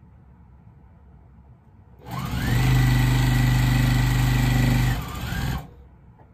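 Electric sewing machine stitching a seam: about two seconds in the motor speeds up with a rising whine and runs steadily at full speed for about three seconds, then slows briefly and stops.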